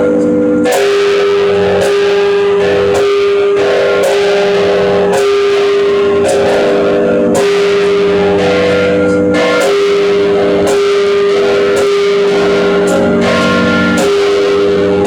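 Church bells of St John's Co-Cathedral ringing together: a run of irregular strikes, each leaving long, overlapping ringing tones at several pitches.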